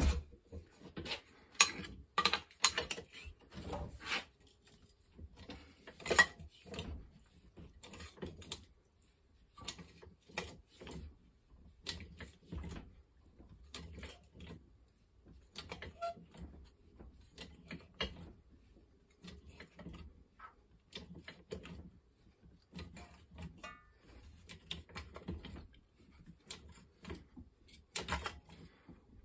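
Irregular metal clicks, taps and clanks as a flat steel strip is set in a bench vise and bent with a lever bar. They come thick for the first several seconds, then sparser.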